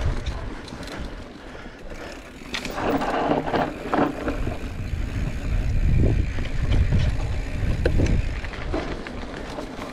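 Mountain bike ridden along a dirt trail: wind rumbling on the microphone in uneven gusts, with scattered clicks and knocks from the bike over the ground.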